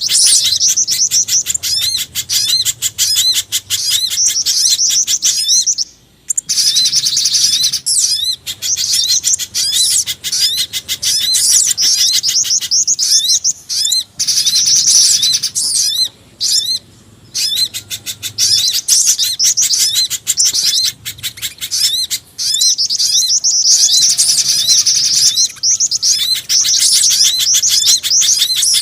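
Bird-lure recording mixing calls of pijantung gunung (a spiderhunter), sogon and jingjing batu: rapid, high-pitched chirping of small birds, many calls a second, broken by a few short pauses.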